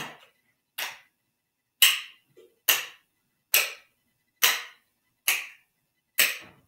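A pair of plastic spoons clacking in a slow, steady rhythmic pattern, struck in turn against the hand, arm and thigh: about eight sharp clacks, a little more than one a second.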